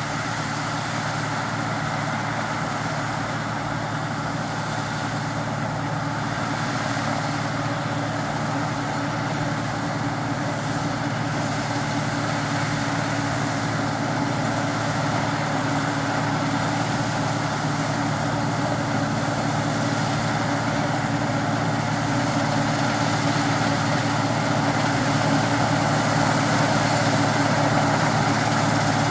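Claas Dominator 106 combine harvester's diesel engine running steadily during the wheat harvest, growing gradually louder.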